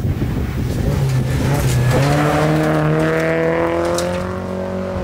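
Rally car engine at high revs as the car passes on a gravel stage. Its pitch drops sharply just before two seconds in, as at an upshift, then climbs steadily under throttle, over the rush of tyres on loose gravel.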